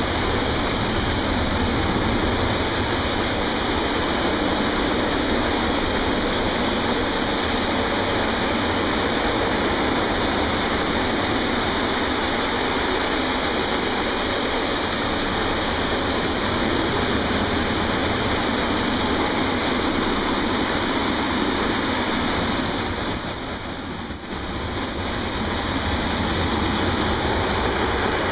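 Container freight wagons rolling past on the rails, a steady rushing rumble of wheels on track that eases briefly near the end.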